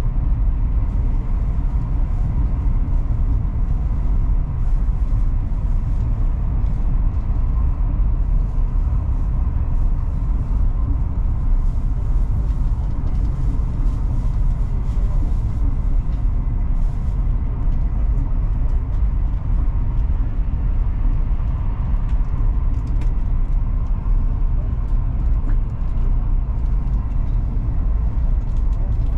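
Cabin noise of a Chinese high-speed train running at speed: a steady low rumble with a faint steady whine above it.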